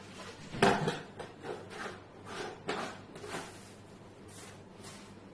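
A plastic whey-protein tub and its lid being handled on a table: a knock about half a second in, then a run of short scrapes and rubs, and two light hissing scrapes near the end as the lid is put back on the tub.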